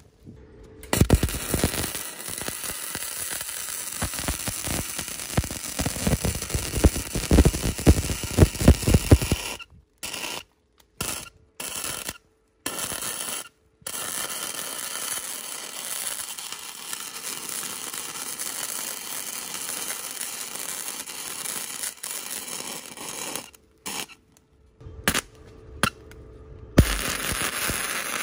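Metalworking sounds in short clips joined by abrupt cuts to silence. The first several seconds hold a rapid run of sharp metallic knocks and clicks; a steady, even noise follows, with no clear tone.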